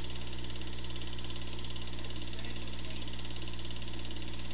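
Home-movie film projector running: a steady motor hum with a rapid, even clatter of the film advancing through the gate.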